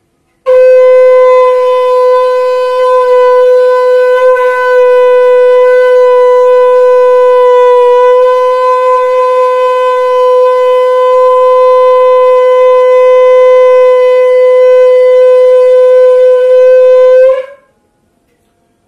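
Shankha (conch shell) blown in one long, loud, steady note of about seventeen seconds, ending with a short flare before it stops.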